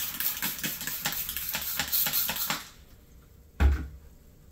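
Trigger spray bottle of sanitiser squirted rapidly again and again, a quick run of hissing sprays, over the Tilt hydrometer to sterilise it; the spraying stops about two and a half seconds in, and a second later comes a single knock as the bottle is set down on the counter.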